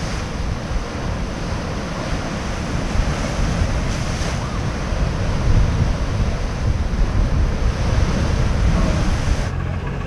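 Surf of a rough sea breaking and washing below rocks, with wind buffeting the microphone. About nine and a half seconds in it cuts to a low, steady engine running.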